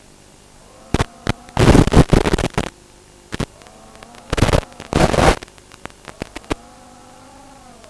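Electric motors of an FPV quadcopter whining faintly, their pitch rising and falling with the throttle. Twice the whine is broken by loud crackling bursts of noise, about a second each, with scattered sharp clicks between.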